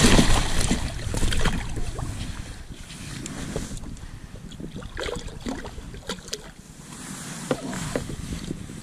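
A pike thrashing in a landing net at the kayak's side: a loud splash at the start and another about a second and a half in, then scattered small splashes, drips and rustling of the wet net as the fish is handled.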